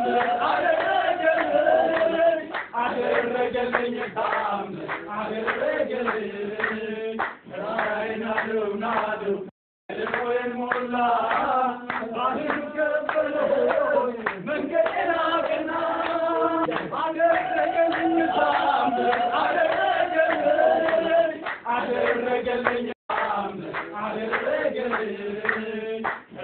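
A group of voices singing together with hand clapping; the sound cuts out briefly twice.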